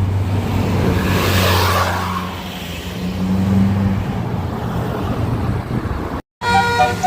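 A bus engine running with a steady low drone while a vehicle passes with a rush of noise about a second in. Near the end a basuri 'telolet' multi-tone air horn starts playing a stepping melody of several notes.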